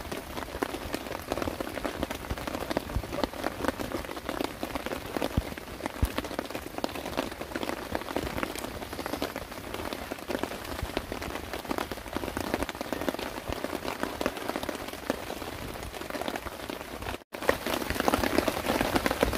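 Heavy rain falling steadily, a dense patter of drops. It drops out for an instant near the end and comes back a little louder.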